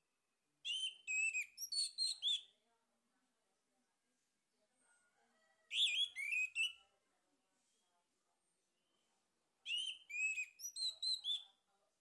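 Male orange-headed thrush singing: three short phrases of rich, downward-curving whistled notes, each lasting one to two seconds, with pauses of a few seconds between them.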